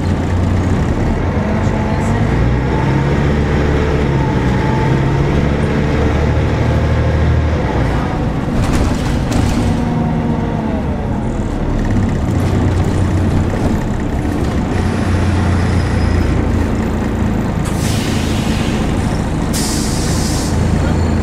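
Volvo B10BLE single-deck bus running under way, heard from inside the saloon: the diesel engine's note rises and falls with speed, with bursts of air hiss from the bus's air brakes about eight seconds in and again near the end.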